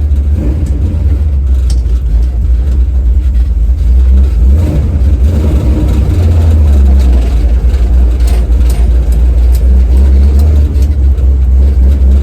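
1970 Chevy Nova's engine running steadily, its sound heavy and low, growing a little louder about halfway through.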